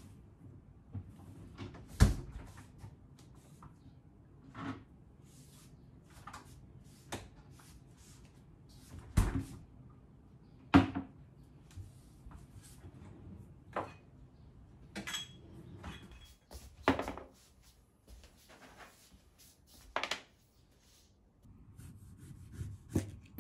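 Kitchen handling sounds: a refrigerator drawer opened and shut and things set down on the counter, heard as scattered sharp knocks and clicks over a low room background. The loudest knock comes about two seconds in.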